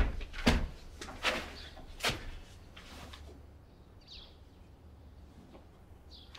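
About five footsteps of boots on a hard floor, spaced roughly a step a second or faster, stopping about three seconds in. Little follows but faint room noise.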